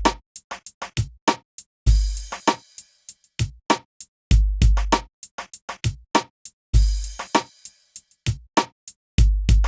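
Electronic background music: a drum-machine beat with regular short hits, a deep bass kick and a crash-like wash recurring about every two and a half seconds.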